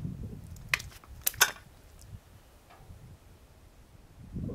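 A few light clicks and taps of small hard objects, the sharpest about a second and a half in, over a soft low rumble.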